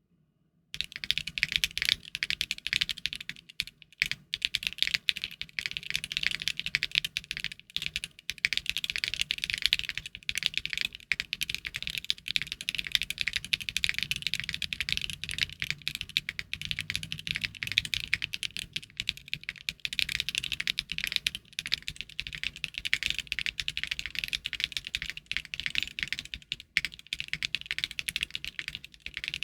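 Continuous fast typing on a Luminkey 65 aluminium 65% mechanical keyboard with Gateron Sylva linear switches, built with no foam inside: a dense run of sharp key clacks that starts just under a second in.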